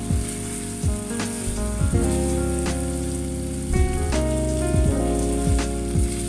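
Background music with melodic notes and a bass beat, over the sizzle of pork mechado, a tomato-sauced pork and vegetable stew, being stirred with a spatula in a frying pan.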